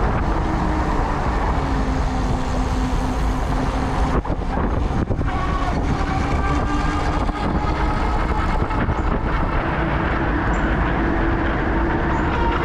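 Steady wind and road noise of riding an e-bike through traffic, heaviest in the bass, with a faint whine slowly drifting in pitch. A few clicks come about four to five seconds in.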